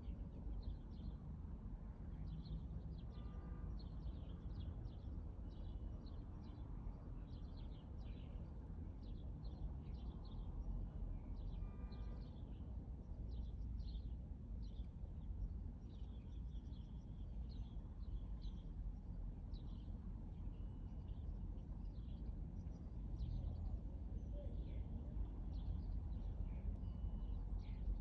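Small birds chirping over and over, short high chirps coming irregularly throughout, over a steady low rumble.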